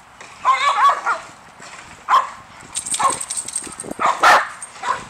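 Dogs at play vocalizing: a wavering, whine-like call about half a second in, then several short barks over the next few seconds.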